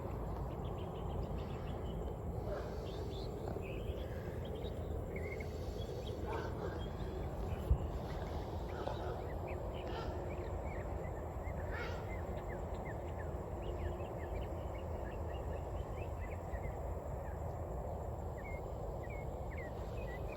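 Small birds chirping over a steady low rumble, with one brief knock about eight seconds in.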